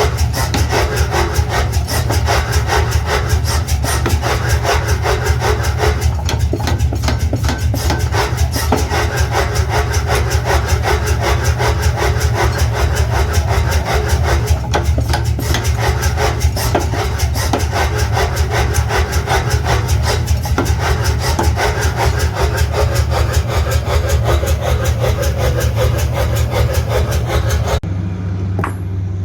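Metalworking machine in a tool factory running continuously, with a fast, even rasping chatter over a steady low hum; the sound cuts off abruptly near the end.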